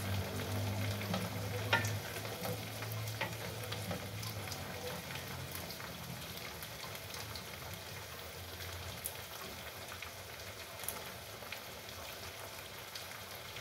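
Food sizzling and frying in a wok on a gas stove, a steady hiss with a few light clicks of a spoon stirring. A low hum runs under it during the first half and fades out.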